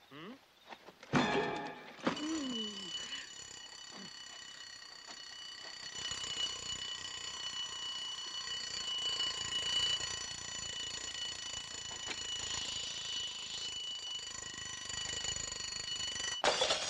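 A thud about a second in, then an alarm clock bell ringing on and on without a break, cutting off suddenly near the end.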